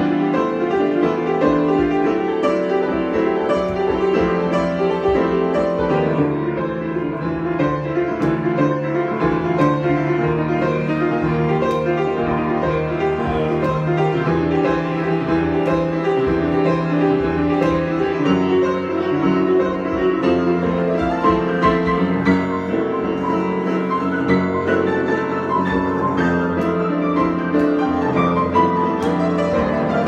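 Solo grand piano improvisation, played continuously without a pause.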